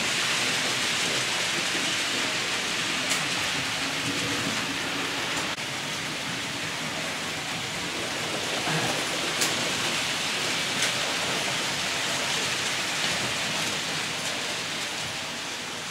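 Steady, even hissing noise with a faint low hum and a few small clicks.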